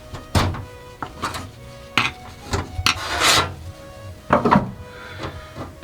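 A string of short scraping and rubbing strokes, with one longer scrape about three seconds in, over quiet background music.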